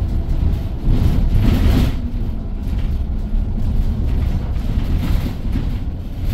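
Self-driving city bus moving, heard from inside the cabin: a steady rumble of road and running noise, swelling for a moment about a second in.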